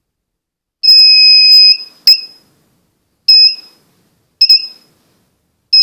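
Harbor Freight Cen-Tech pinpointer metal detector sounding its high-pitched electronic alert as its tip is moved near metal: a long beep, two short beeps, a quick double beep, then another long beep starting near the end.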